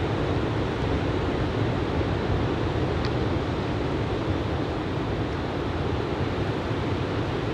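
Ocean surf from a shoulder-high typhoon swell breaking and washing up the beach: a steady rushing wash, with a little low wind rumble on the microphone.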